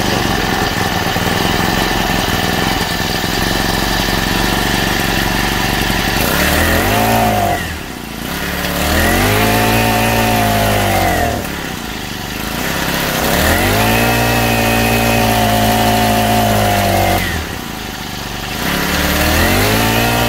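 Four-stroke brush cutter engine test-running after a rocker arm replacement: it idles steadily for about six seconds, then is revved up and held high and dropped back to idle several times, four rises in all, the last still up at the end.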